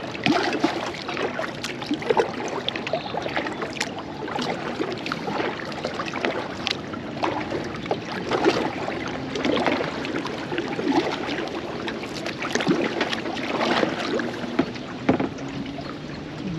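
Carlisle double-bladed kayak paddle dipping and pulling through the water in strokes, splashing every second or two, with water swishing along the plastic hull of a Pelican angler kayak.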